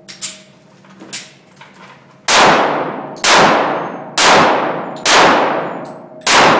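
Five pistol shots from a short-barrel Kimber 1911 in .45 ACP, about one a second, each ringing off in a long echo in the indoor range. A few faint sharp clicks come in the first two seconds before the shots.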